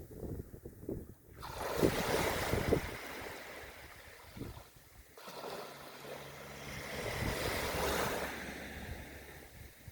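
Surf washing onto a beach: one wave rushes in about a second in and a second, longer one swells and fades over the second half. Wind buffets the microphone with low rumbles early on.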